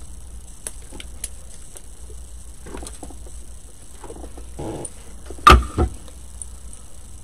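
Faint rustling and small clicks of artificial greenery stems being handled. About five and a half seconds in comes a sharp knock with a brief ringing tone, then a smaller knock just after, as the hot glue gun is set down on the worktable.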